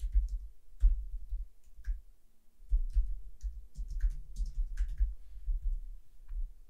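Typing on a computer keyboard: irregular key clicks over low thuds.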